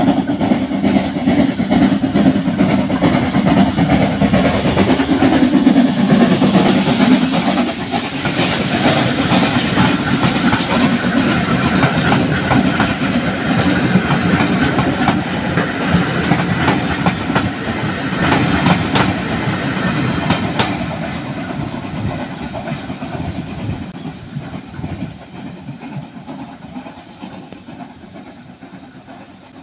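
Steam train hauled by the 0-6-0 saddle tank NCB No. 7 'Wimblebury' passing at close range: a heavy rumble as the engine goes by, then the coaches rolling past with their wheels clattering over the rail joints. The sound fades away over the last several seconds as the train moves off.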